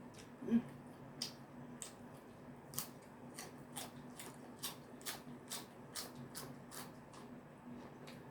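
Eating sounds from a bowl of seafood soup: a run of small sharp clicks and taps, about two a second, over a steady low hum. A brief, louder low sound comes about half a second in.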